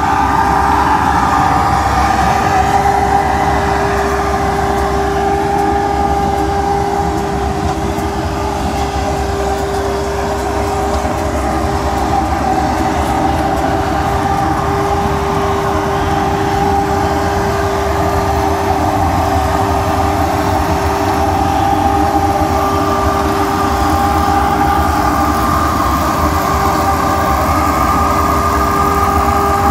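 Tractor engine and towed pumpkin harvester running steadily in the field, with a few steady whining tones held over the machinery noise.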